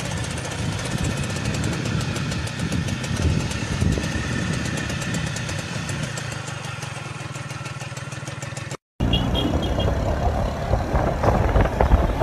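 Motorcycle engine running steadily with a fast, even beat. It cuts off abruptly about nine seconds in, followed by louder, rougher vehicle and street noise.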